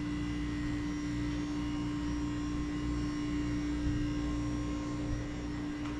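Steady electrical hum: one strong steady tone with fainter higher tones above it, over an uneven low rumble.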